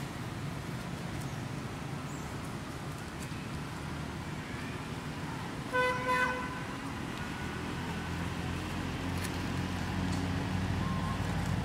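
A vehicle horn toots twice in quick succession about six seconds in, over a steady low rumble of traffic.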